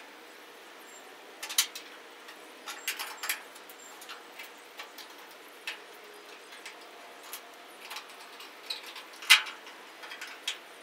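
Scattered light clicks and taps of a chrome backup-lamp housing being fitted by hand into the rear fender of a 1963 Chevrolet C10 pickup, the loudest tap near the end.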